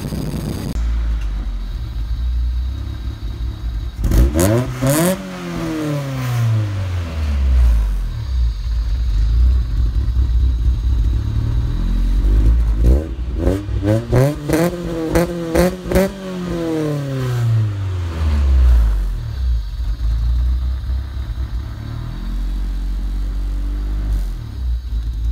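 B20-swapped Honda Civic's 2.0-litre four-cylinder running through a 2.25-inch header, test pipe and Yonaka exhaust: idling, then revved twice, a quick rev about four seconds in and a longer, choppier rev around the middle, each falling back to idle.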